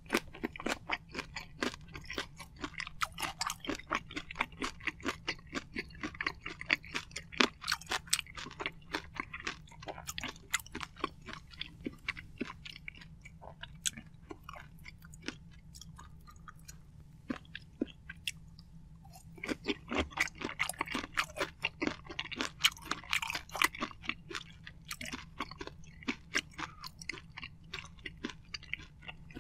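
Close-miked wet chewing of soft marinated raw shrimp and rice, a fast run of sticky smacking clicks. The chewing thins out to scattered clicks in the middle and comes back dense about two-thirds of the way through.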